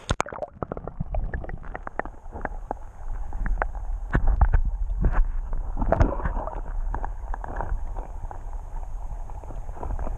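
A camera going under the surface of a shallow creek with a sharp splash, then muffled underwater sound: a low rumble of moving water with many irregular clicks and knocks from the camera housing being handled and stones shifting.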